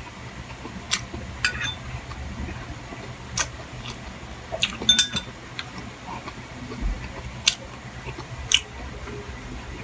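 Cutlery clinking against a plate or bowl while eating: about eight sharp, scattered clinks, the loudest about five seconds in, over a low steady hum.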